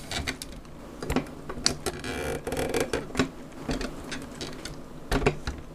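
Handling noise of a toy model plane being moved and set down among toys on a shelf: scattered clicks and knocks, a brief scraping rustle about two seconds in, and a few louder knocks about five seconds in.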